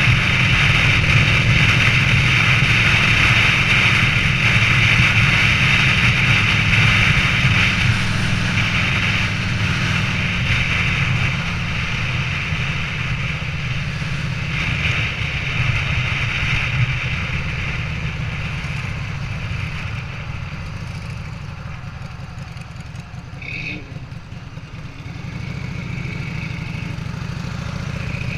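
Harley-Davidson Sportster V-twin, bored out to 1250 cc, running steadily as the motorcycle is ridden, heard from the rider's seat. It eases off and gets quieter about three quarters of the way through, then picks up again near the end.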